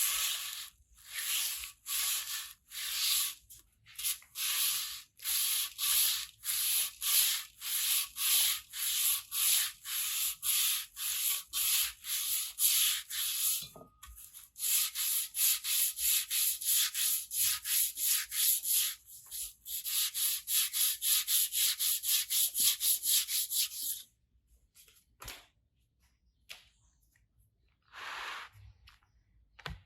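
Hand sanding of an aluminium motorcycle exhaust: quick back-and-forth rubbing strokes, about two to three a second, with a brief pause midway. The strokes stop about 24 seconds in, leaving only a few single strokes near the end.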